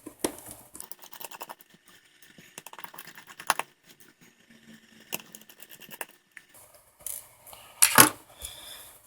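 Small screwdriver working tiny screws out of a smartphone's internal frame, with scattered light clicks and taps of metal and plastic. A louder click comes about eight seconds in.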